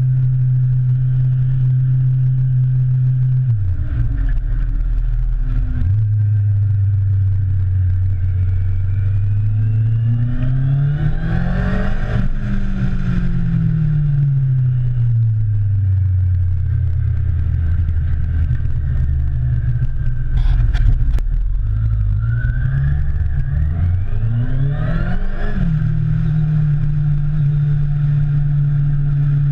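Motorcycle engine heard from the handlebars: steady revs that drop low around four seconds in, then two runs up and back down through the revs, peaking about twelve and twenty-five seconds in, over a steady rush of noise. A short knock about twenty seconds in.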